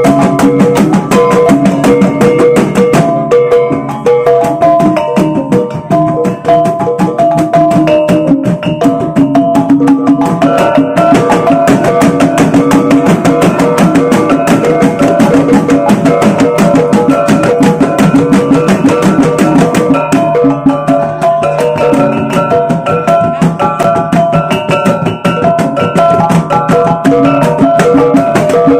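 Bajau bertitik gong-and-drum ensemble playing a fast, dense beat. A kulintangan, a row of small bossed gongs struck with wooden sticks, rings out pitched notes over rapid drumming on gendang drums and strokes on a large hanging gong.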